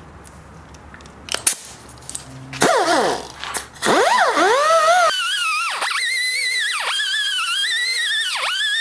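Cordless rotary tool with a crimped steel wire cup brush: a few handling clicks, then the motor spins up with its whine sweeping up and down. It settles into a steady high whine that sags in pitch about once a second as the brush is pressed into the rusted cast-iron vise base to strip the rust.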